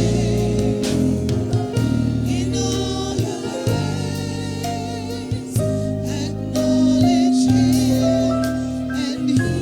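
Gospel worship song: singing with instrumental backing, slow and sustained, with long-held low notes under the voices.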